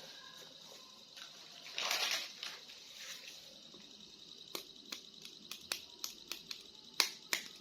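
Small plastic toy figures being handled: a brief rustle about two seconds in, then a run of sharp little plastic clicks that come more often toward the end.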